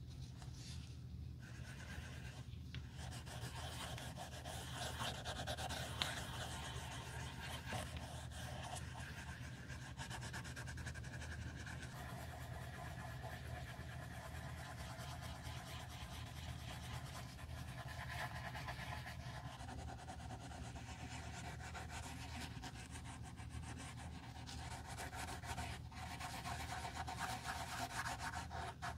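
A foam pad held in forceps rubbing and dabbing over worn white leather, a soft continuous scuffing with many small strokes, over a steady low hum.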